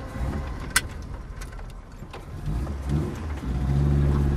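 Classic Ford saloon's engine running at low revs, with a sharp click about a second in, then picking up and holding steady higher revs near the end.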